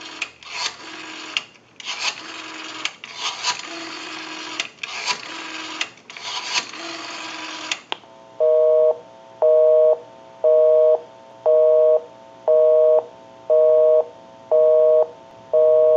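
Rotary dial of a Northern Electric three-slot payphone being dialled digit by digit, each pull followed by a short whir and clicks as the dial runs back. After about eight seconds comes a busy signal: a two-note tone beeping on and off about once a second, showing that the called line is engaged.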